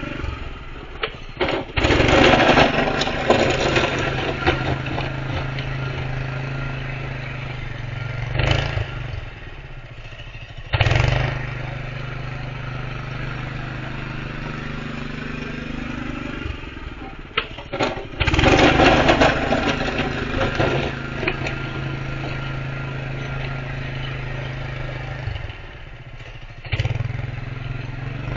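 Honda GX160 single-cylinder engine of a home-built snow plow running steadily. It grows louder and rougher twice, for a few seconds each time, as the plow pushes into the snow.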